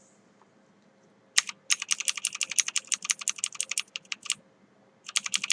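Computer keyboard typing: a quick run of keystrokes starting about a second and a half in, stopping shortly before the end, then starting again near the end.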